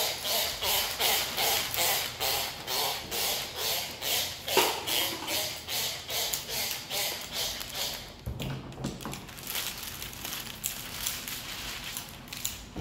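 Hand trigger spray bottle squirting slip solution under window tint film on a windshield, about two to three sprays a second, stopping about eight seconds in; after that, quieter rustling of the wet film being handled.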